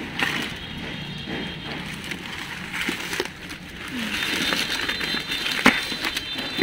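Wet dead leaves rustling and crackling as hands rummage through them, with scattered small clicks and one sharp snap about two-thirds of the way through. A faint high steady tone joins about four seconds in.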